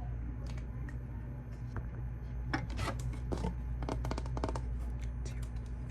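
Computer keyboard typing in irregular clusters of keystrokes, with pauses between them.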